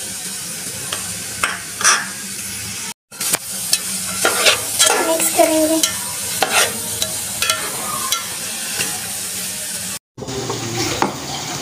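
Chopped onion, carrot and green capsicum sizzling in hot oil in a pot as they are stirred, with occasional scraping strikes of the stirring utensil against the pot. The sound cuts out twice for a moment.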